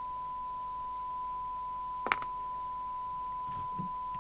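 Steady 1 kHz test tone from the Sapphire X4000 CB radio's speaker as its open squelch passes the signal generator's modulated test signal. A single sharp click about two seconds in.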